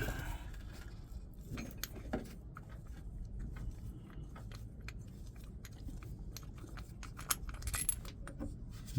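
Scattered light metallic clicks and clinks of a spark plug and hand tools being handled, a few sharper ones near the end.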